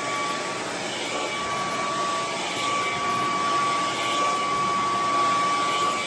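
Handheld hair dryer running steadily while blow-drying hair: an even rush of air with a steady motor whine over it.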